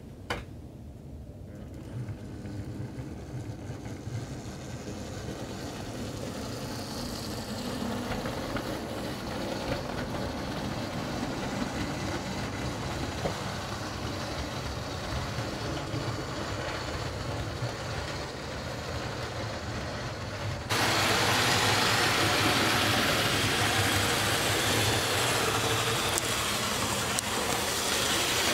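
OO-gauge model diesel locomotive and coaches running along the track: a steady whirr of the electric motor with the rattle of wheels on the rails. It builds gradually over the first several seconds and jumps suddenly louder about three-quarters of the way through.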